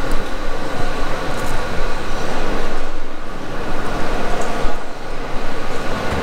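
Pen-shaped corded handheld power tool running steadily as it is worked over a phone skin, a constant rushing whir with a faint steady whine.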